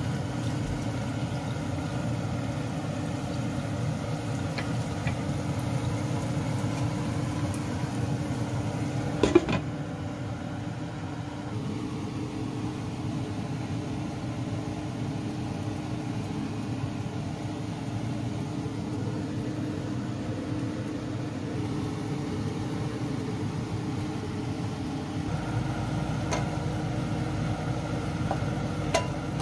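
A steady low machine hum, with one sharp knock about nine seconds in.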